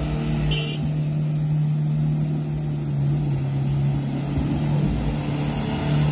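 Pickup truck engine running at steady revs under load while the truck is stuck in deep mud. There is a brief sharp noise about half a second in.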